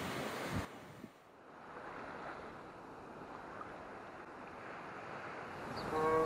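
Ocean surf breaking against rocks, with wind buffeting the microphone. It cuts off abruptly under a second in, giving way to a softer, steady wash of gentle waves on a sandy shore. A violin begins playing just before the end.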